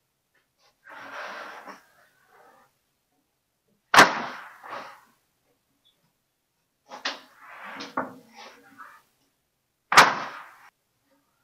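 Pine boards being slid and dropped onto a lumber stack: a short scrape about a second in, then sharp wooden clacks, the loudest about four seconds in and again near the end, with a few smaller knocks between.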